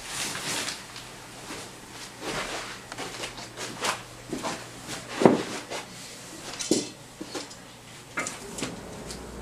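Pots and kitchen utensils clattering as they are handled, a string of irregular knocks and clinks with the loudest knock a little past halfway.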